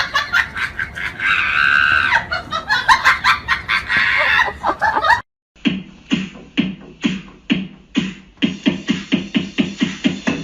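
Background music: a busy, clicky rhythmic passage breaks off suddenly about halfway, and after a short gap a different track starts with a steady beat of short repeated notes.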